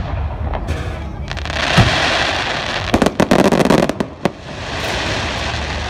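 Fireworks display: a low thump about two seconds in, a loud rushing hiss as a fan of comets fires, then a quick run of sharp cracks between three and four seconds in as crackling stars burst, and one last crack just after.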